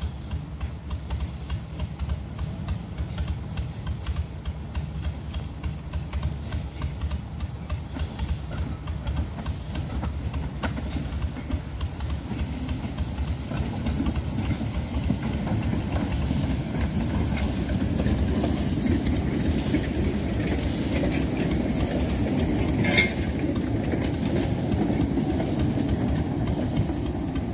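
Small narrow-gauge steam locomotive, a 1928 Orenstein & Koppel, chuffing quickly with a steam hiss as it hauls its coaches in, wheels clattering over the track. It grows louder as it draws near from about halfway through, with one brief sharp high sound near the end.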